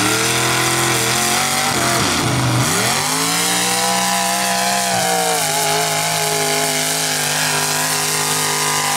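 Engine of a lifted pickup truck running hard at high revs through short open exhaust stacks while the truck churns through a mud pit. The revs dip and climb back about two seconds in, drop a little just past halfway, then hold steady.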